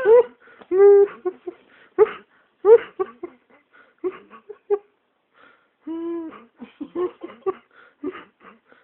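A young man laughing in short, high-pitched, breathy bursts, with a few longer whining cries, as a pained reaction. There is a brief lull about five seconds in.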